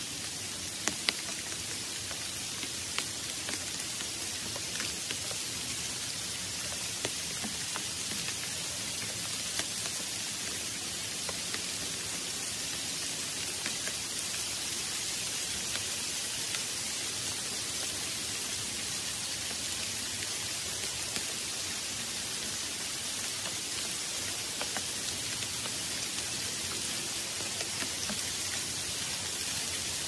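Steady rain falling on leafy foliage: an even hiss with scattered louder drops, the sharpest about a second in.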